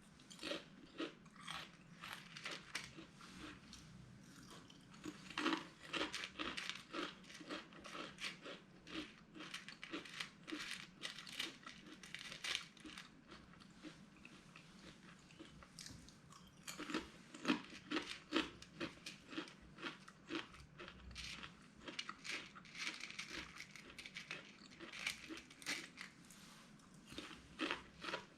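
Close-up crunching and chewing of a crisp spicy potato snack: a dense run of irregular crisp crunches, louder in spells around six seconds in and again around seventeen seconds in.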